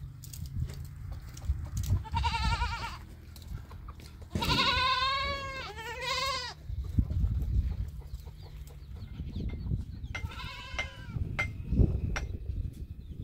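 Goats bleating: four quavering calls. A short one comes about two seconds in, a long one and a shorter one follow back to back around the middle, and another comes near the end.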